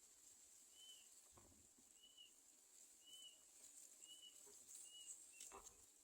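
Near silence with faint short chirps from a bird, about one a second, over a steady high hiss.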